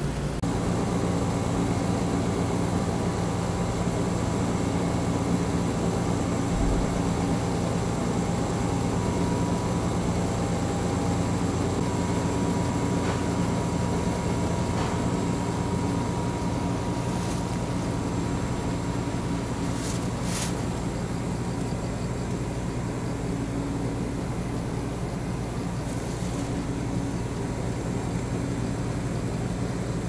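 Air-conditioner outdoor unit running: a steady mechanical hum with a thin whine that steps up in pitch twice in the first half. A few brief clicks come about two-thirds of the way through.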